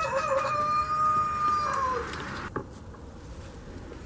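A rooster crowing once: a few short rising notes, then a long held note that drops at the end. A short click follows.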